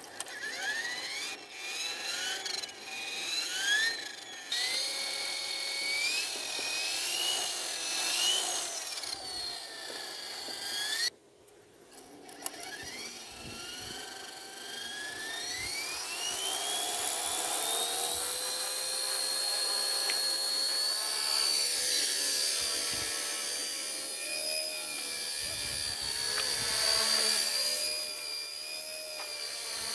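Small electric motor of a homemade mini remote-control helicopter whining as it spins up and down in several rising and falling sweeps. It cuts out briefly about eleven seconds in, then climbs back up to a steady high whine.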